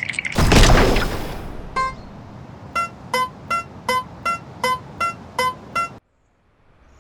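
Cartoon sound effects: a loud noisy burst about half a second in, then a run of about nine short electronic beeping notes at roughly two and a half a second, which cuts off suddenly about six seconds in.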